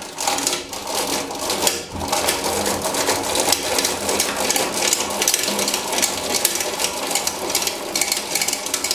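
Table height-adjustment crank of a Stahlmann combination jointer-thickness planer being turned by hand, its mechanism rattling and clicking rapidly without a break. It sounds really odd.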